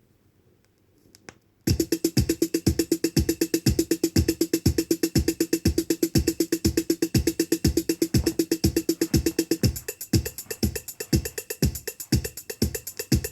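A 1988 dance track from a vinyl record starting after a near-silent gap between tracks: about a second and a half in, a drum-machine kick comes in on an even beat of about two a second, with steady hi-hats and a held low synth tone that drops out near ten seconds.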